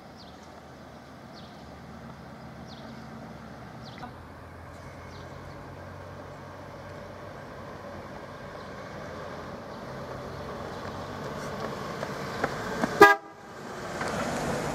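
A 1950s Cadillac's V8 running as the car rolls slowly, a low hum that grows louder as it comes closer. About a second before the end comes one short, loud horn blast.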